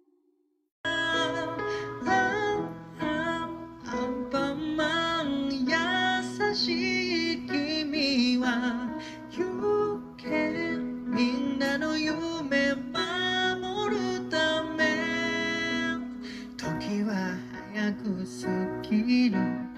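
Music: acoustic guitar with a singing voice, starting about a second in after a brief silence.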